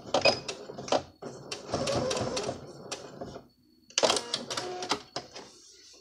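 Electric sewing machine backstitching to reinforce a seam corner: a quick run of needle clicks, about two seconds of steady running, a short stop, then another brief spell of stitching.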